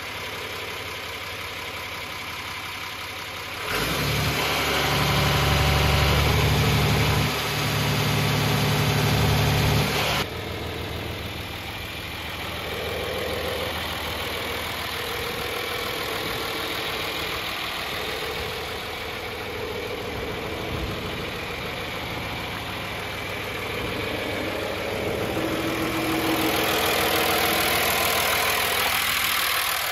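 John Deere 2955 tractor's six-cylinder diesel engine idling steadily. It is louder and deeper for several seconds near the start, and louder and brighter again near the end.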